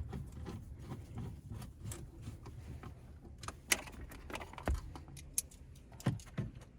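Scattered small clicks and taps from plastic interior trim and screws being handled and fitted back together, over a low steady hum.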